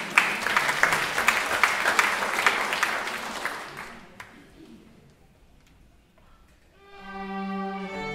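Audience applause that dies away over about four seconds. After a short hush, a children's string ensemble of violins starts playing near the end.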